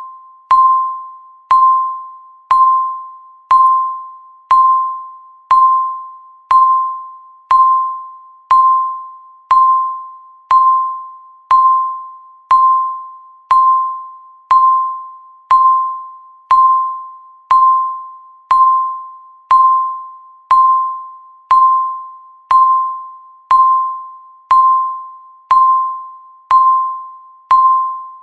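Countdown timer sound effect: a single bell-like ding at one steady pitch, struck once a second, each note fading out before the next, ticking off the seconds.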